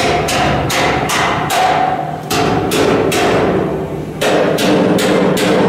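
Hammer striking metal repeatedly, in groups of four or five blows about 0.4 s apart with short pauses between the groups.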